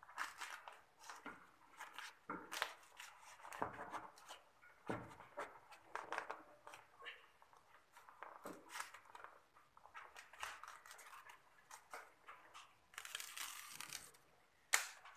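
Irregular rustling, crinkling and small clicks of hands handling and wrapping the insulated refrigerant pipe bundle of a split-type air conditioner, with a longer scratchy rasp about thirteen seconds in and a sharp click near the end.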